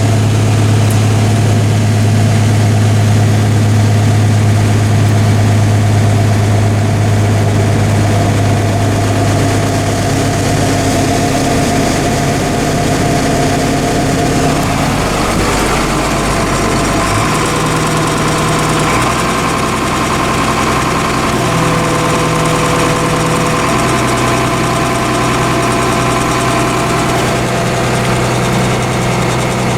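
Engine of a piece of corn-harvest machinery running steadily, its pitch shifting to a different steady note about halfway through.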